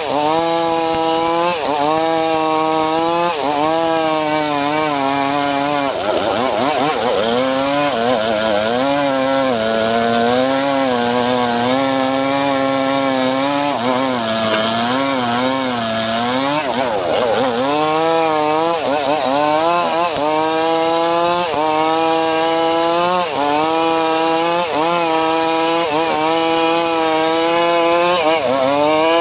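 Homemade engine-driven wood saw (gergaji srekel) cutting mahogany. The engine's pitch sags as the blade bites into the wood and picks up again between cuts, over and over, with a longer stretch of steady lower-pitched labouring in the middle.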